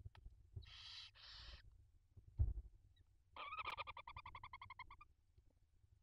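Barn owls at the nest: two short hissing calls about a second in, a dull thump midway, then a rapid pulsed, twittering call lasting about two seconds.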